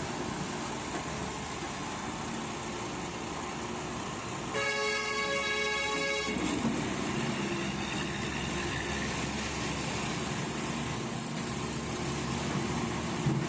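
Diesel engine of a Doosan DX140W wheeled excavator running steadily while it digs and loads. A vehicle horn sounds once, held steady for nearly two seconds, about four and a half seconds in.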